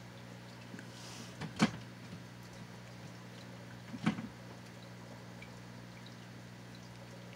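Steady low hum with two sharp knocks about two and a half seconds apart, the first the louder.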